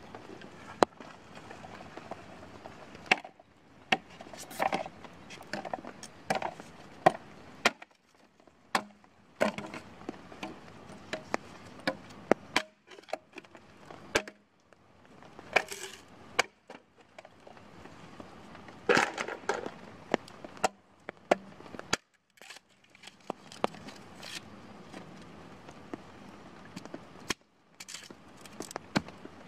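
Hatchet chopping and splitting a bamboo pole on a wooden stump: many sharp, irregular knocks and cracks, with short pauses between runs of strokes.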